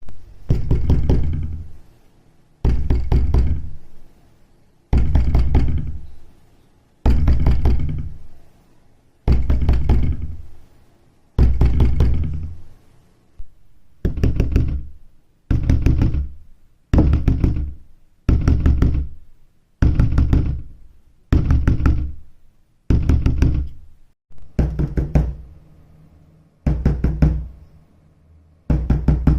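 Heavy pounding on a door in bursts of several quick blows, one burst about every two seconds, each with a deep boom that dies away. The bursts become shorter and tighter about halfway through.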